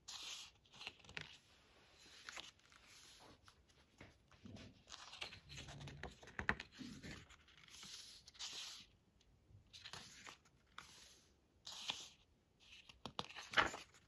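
Pages of a hardcover photobook turned by hand: a run of soft paper swishes and rustles as fingers slide over and flip the thick pages, with a sharper flick near the end.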